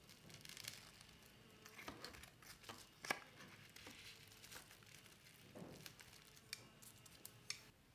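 Faint crinkling of plastic cling wrap and light ticks of wooden chopsticks as a spam musubi's nori strip is pressed into place, with a sharper click about three seconds in.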